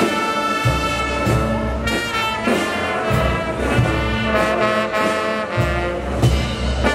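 Brass band of trumpets, trombones and sousaphones playing a tinku dance tune, with bass drum beats underneath.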